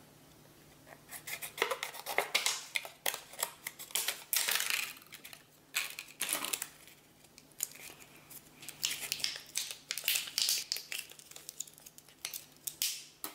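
Scissors snipping through thin red PET bottle plastic in a series of irregular sharp snips, with the plastic sheet crinkling as it is handled and folded.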